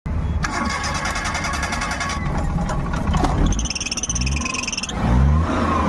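Maruti Omni engine running just after start-up with belt noise: a rapid rhythmic chirping for about two seconds, then a high squeal from about three and a half to five seconds, over the engine's low rumble. This is the starting belt noise of a slipping drive belt.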